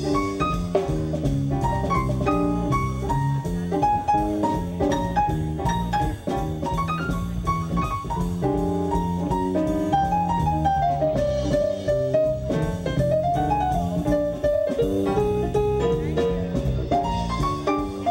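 Live band playing an instrumental B-flat blues: electric keyboard, drum kit and guitar.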